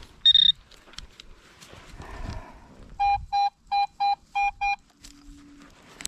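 Metal detector signal tones: a short high beep about a quarter second in, then six quick beeps at a middle pitch starting about three seconds in, and a brief low tone near the end.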